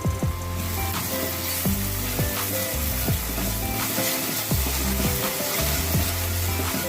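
Tomato-and-spice masala sizzling as it fries in a pan, a steady hiss, with background music underneath.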